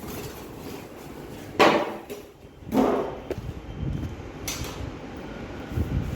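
Packaging being handled: two loud scraping knocks about a second apart, with scattered lighter thuds and rustling around them.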